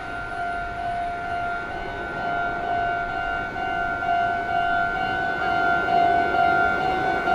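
Railway level-crossing alarm ringing: a steady, pulsing electronic bell tone of fixed pitch, growing louder from about three seconds in.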